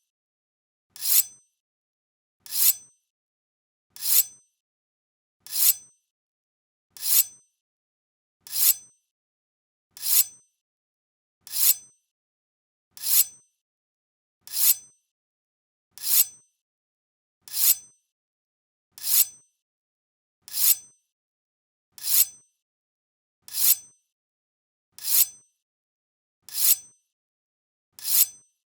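A katana being drawn from its scabbard, repeated about every second and a half, roughly nineteen times. Each draw is a short, bright sliding scrape of steel that ends in a high metallic ring.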